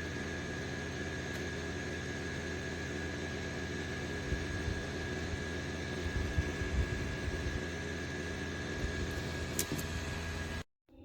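SmartDevil small USB desk fan running steadily, a whooshing noise with a thin high whine and a low motor hum, with a few soft bumps in the middle. The sound cuts off abruptly near the end.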